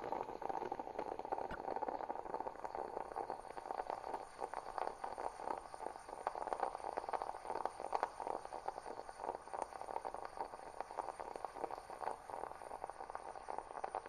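Background hubbub of a busy exhibition hall: a steady, irregular murmur of many distant voices and activity, with no single voice standing out.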